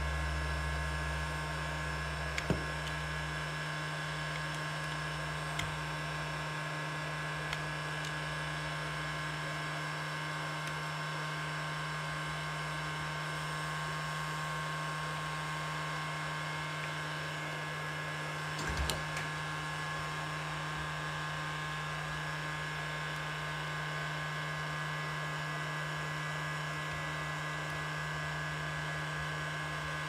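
Steady electric hum of a heat gun running, with a few sharp clicks of screwdrivers working against a metal seatbelt buckle and its plastic cover. The loudest clicks come a little past halfway.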